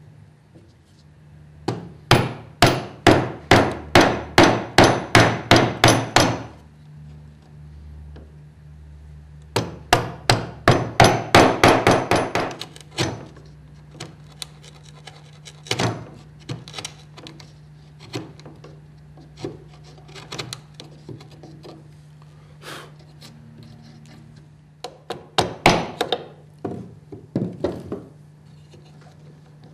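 Wood chisel driven by quick light mallet taps, paring back the walls of a halving-joint socket in Fijian cedar. The taps come in three fast runs of about three or four a second, with scattered single taps between them.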